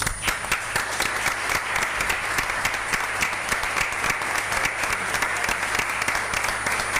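Audience applauding, a steady spread of many hands clapping that starts right as the speech ends.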